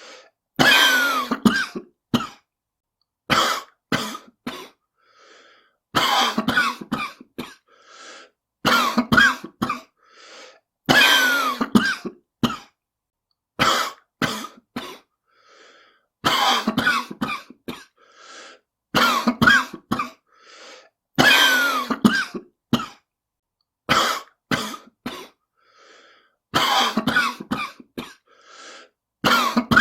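A smoker coughing in repeated fits. Each fit is a loud cough followed by a few shorter ones, coming every two to three seconds, with faint breaths between the fits.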